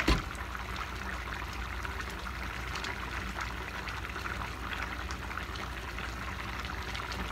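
Chicken and potato stew in tomato sauce simmering in a pan over a gas flame: a steady bubbling hiss. A sharp knock comes right at the start, and a wooden spatula stirs through the stew.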